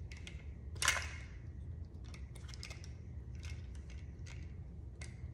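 Small clicks and scrapes of wire connectors being worked off a fuel pump's electrical terminals by hand, with one louder scrape about a second in.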